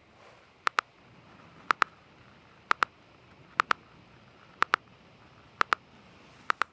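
MSI GS60 Ghost Pro 3K laptop making its unwanted ticking noise: sharp double ticks, two in quick succession, repeating about once a second over a faint steady hiss.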